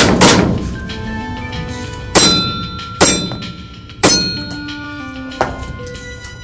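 Airsoft pistol firing about six shots in quick succession, each hit on a metal target giving a sharp clang that rings briefly.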